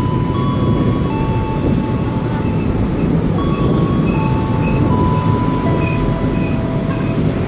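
Coaches of the Argo Sindoro intercity passenger train rushing past on the rails with a steady rumble. Thin high squealing tones from the wheels ride over it, holding and then stepping to a new pitch every second or so.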